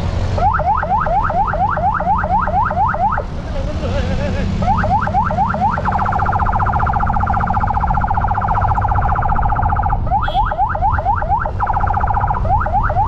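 Electronic siren cycling through its tones. It gives rapid rising whoops about five a second, breaks off for about a second and a half, then plays a steady two-note warble from about six seconds in until about ten seconds, when the whoops return. A steady low rumble of scooter engine and wind lies underneath.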